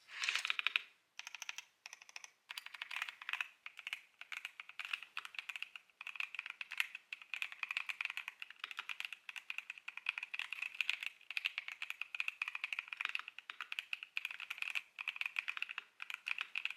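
Mechanical keyboard fitted with Akko V3 Cream Purple Pro switches, 5-pin tactile switches with a nylon long-pole stem, being typed on quickly: a dense run of keystroke clicks, broken by a few short pauses in the first six seconds.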